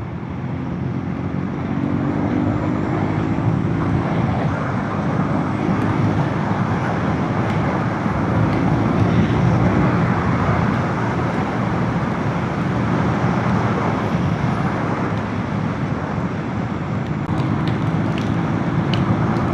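Motorcycle engine running steadily under way, with wind and tyre noise from a rough road surface.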